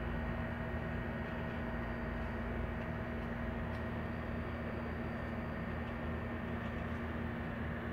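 A steady machine hum over an even background noise, unchanging throughout.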